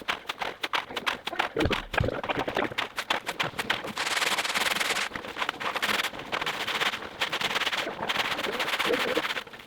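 Hand tools scraping and knocking on wet concrete: a clatter of rapid small knocks, then two long stretches of steady scraping about halfway through.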